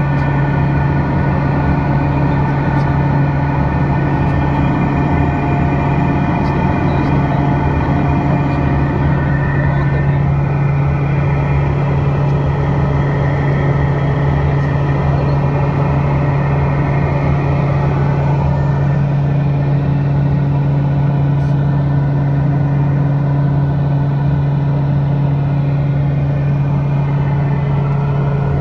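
Cockpit noise of a Piper Malibu JetProp DLX in flight: its Pratt & Whitney PT6A turboprop and propeller make a steady, loud low drone with a fainter steady whine above it.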